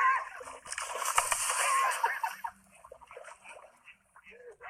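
Loud splashing and sloshing of water as a just-grabbed river fish thrashes, lasting about two and a half seconds before it quietens, with short scattered splashes after.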